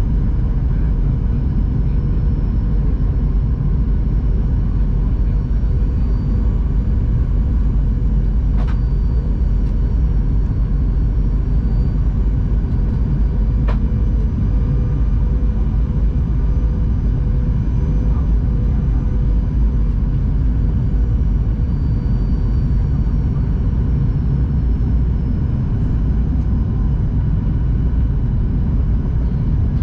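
Steady in-flight cabin noise of a Boeing 737-800: a constant deep rumble of the CFM56 jet engines and airflow, with a faint steady hum above it and two faint clicks.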